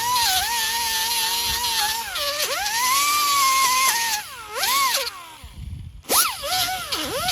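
High-speed rotary tool whining at a high steady pitch that sags and recovers as it is loaded against the work. It stops for about a second near the end, then spins back up and bogs down several times in quick succession.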